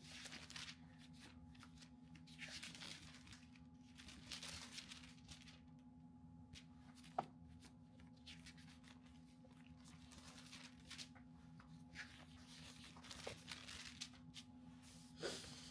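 Faint rustling of thin Bible pages being leafed through, soft swishes every second or two, with one small sharp tick about seven seconds in and a low steady hum underneath.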